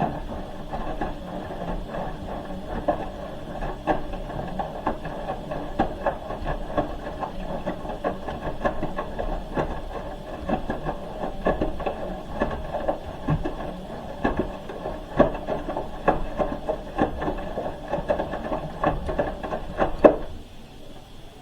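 Hoover H-wash 300 Plus washing machine tumbling a wash load, the drum turning with many irregular clicks and knocks, then stopping about 20 seconds in.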